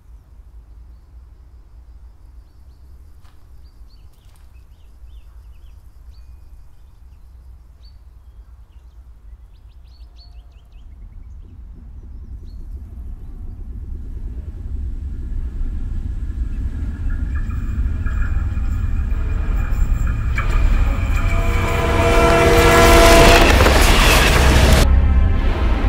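An approaching train: a low rumble grows steadily louder from about ten seconds in, and the train's horn blares in the last few seconds before the sound cuts off suddenly near the end.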